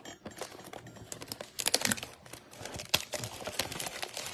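Trading cards in clear plastic holders being handled: a busy run of small plastic clicks and crinkles.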